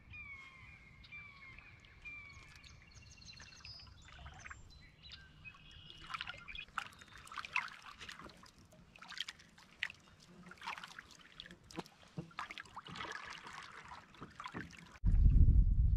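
Canoe paddle strokes: water splashing and dripping off the paddle blade in irregular bursts, with a series of short falling bird calls near the start. About a second before the end a sudden loud low rumble sets in.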